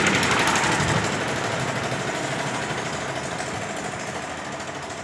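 A motor vehicle's engine running with a fast, even pulse, growing steadily fainter.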